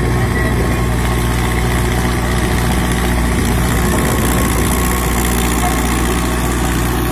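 Mahindra Arjun 555 tractor's diesel engine running loud and steady under load as it pulls a tillage implement through dry, cloddy soil.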